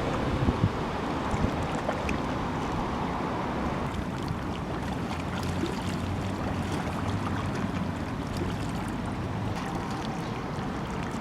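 Wind buffeting the microphone: a steady low rumble with light outdoor ambience.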